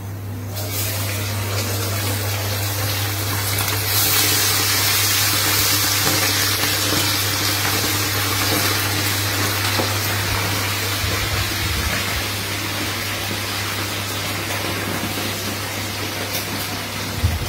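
Chicken pieces deep-frying in hot oil in a kadai, a steady sizzle that starts about half a second in and grows louder and brighter about four seconds in.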